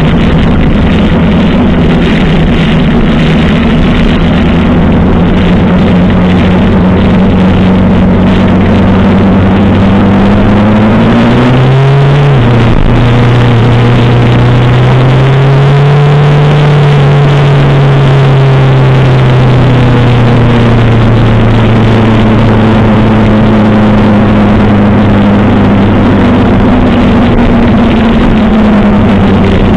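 1985 Suzuki GS700ES air-cooled inline-four engine running at cruising speed under heavy wind noise on the microphone. About twelve seconds in, the revs climb and then drop off sharply at a gear change. The engine runs lower for several seconds and picks back up later.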